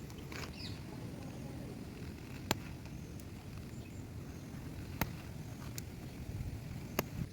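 Three sharp clicks or knocks, a couple of seconds apart, over a steady low rumble.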